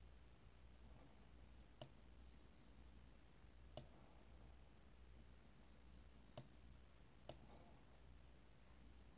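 Four faint computer-mouse clicks at uneven intervals, over quiet room tone with a faint low hum.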